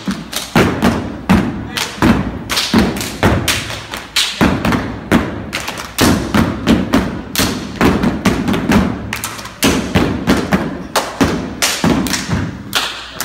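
Stepping: feet stomping and hands clapping and slapping in a fast, syncopated rhythm, about three or four sharp hits a second in changing patterns.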